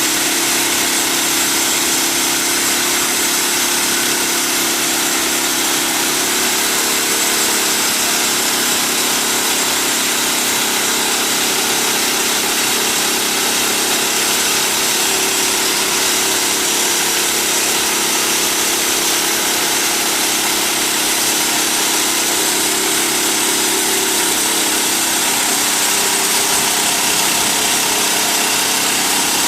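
Wood-Mizer portable band sawmill running steadily and loudly, its engine and band blade going with a constant hiss, the engine note shifting slightly a couple of times.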